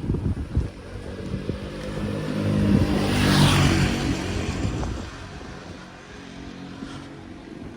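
A car's engine and tyre noise, swelling to a peak about three seconds in and then fading.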